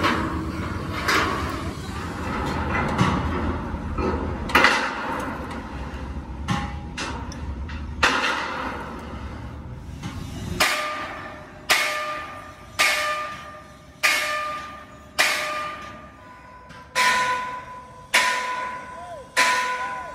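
Hand hammer striking steel plate, each blow followed by a ringing tone that dies away. The first few blows come irregularly, then from about eight seconds in they settle into a steady beat of roughly one a second.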